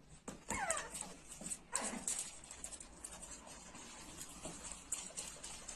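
Small puppy whimpering: two short, high whines that fall steeply in pitch, about half a second and two seconds in, with fainter scuffling noise after.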